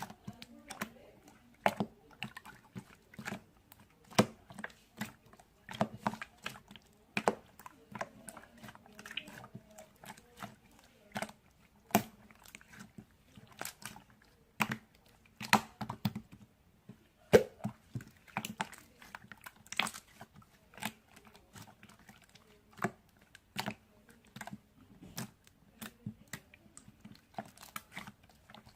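Hands squishing and pressing clear slime, making irregular wet clicks and pops, several a second with short pauses between.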